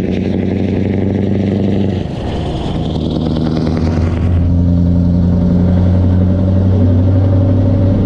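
Scania R650 truck's V8 diesel engine running under way. It dips briefly about two seconds in, then pulls louder and steady.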